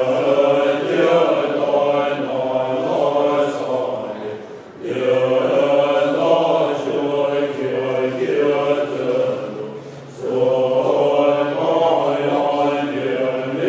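Tibetan Buddhist monks chanting together in low, droning voices, in long phrases of about five seconds with short breaks for breath between them.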